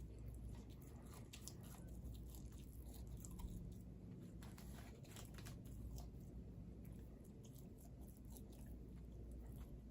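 Faint chewing: scattered soft crunches and mouth clicks over a low steady hum.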